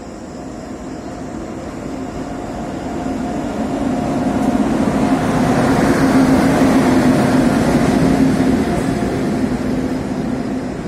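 Pushpak Express passenger train pulling into the station behind an Indian Railways WAP-7 electric locomotive. The rumble and rail noise build as it approaches and are loudest as the locomotive passes, about six seconds in, over a steady hum. The coaches then roll past.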